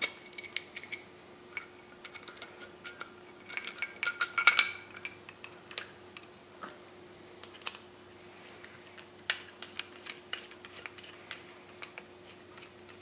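Small steel fixture parts (a pin, set-screw block and precision parallel) clicking and clinking as they are handled and fitted together by hand. The loudest stretch is a quick run of ringing metal clinks about four seconds in, with scattered lighter clicks after it over a faint steady hum.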